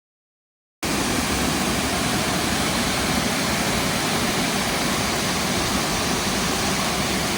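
Silence, then less than a second in, the loud, steady rush of a waterfall's falling water cuts in abruptly and holds even.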